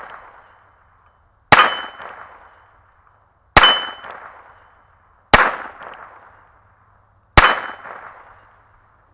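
Four shots from a North American Arms .22 Short mini revolver, about two seconds apart, each a sharp crack that rings out for about a second. The 8-inch steel target plate sings when it is hit.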